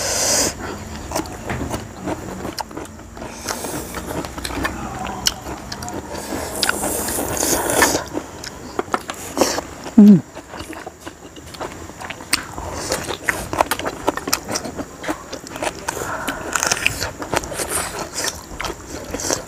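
Close-up eating sounds of several people eating noodles and steamed momo dumplings: slurping, chewing and biting, with chopsticks clicking against plates. About halfway through comes a short, loud vocal sound.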